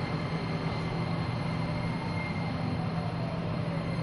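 Nagoya Municipal Subway 6050 series train running at a steady speed, heard from inside the car: an even rumble with a faint, thin high tone above it.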